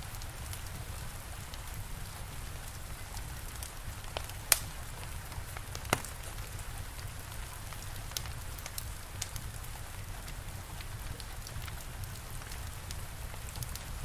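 Steady rain with a wood fire crackling: an even hiss over a low rumble, with scattered pops, two sharp loud ones about four and a half and six seconds in.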